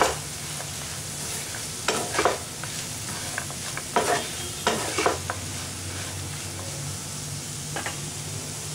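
Chopped mint leaves, green peas and onions sautéing in oil in a pan, sizzling steadily, while they are stirred and tossed, with a few scraping strokes of the stirring spoon against the pan.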